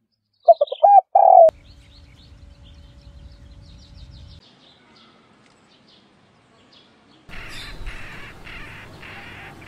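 Laughing dove cooing: a few short rising-and-falling coos and then a longer one, about half a second in. Faint chirping of small birds follows, and a soft hiss comes in near the end.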